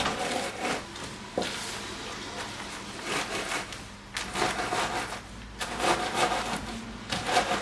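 Oreo biscuits being crushed by hand inside a plastic zip-lock bag: irregular crunching of crumbs and rustling of the plastic.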